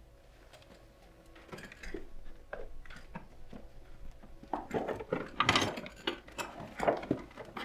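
Rattling and clanking of a stretcher being wheeled out with a body on it, a string of irregular knocks and clatters that grow louder about halfway through.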